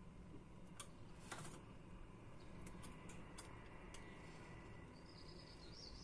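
Budgerigar at its cage's seed feeder: faint scattered clicks and taps through the first half, then a short, soft, wavering chirp near the end.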